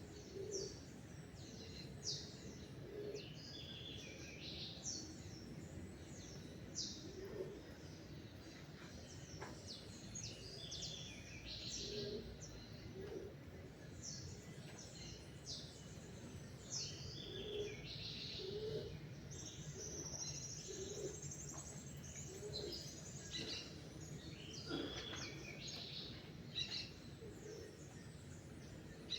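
Several songbirds chirping and singing in overlapping short, high calls, with some lower repeated notes, over a steady low background noise.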